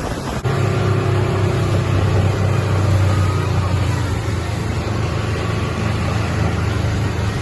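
Car engine and road noise heard from inside a moving car, a steady low hum that starts suddenly about half a second in.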